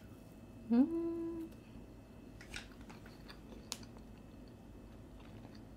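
A woman gives a short hummed "mmm", rising and then held, about a second into eating a soft strawberry-filled marshmallow. A few faint chewing and mouth clicks follow.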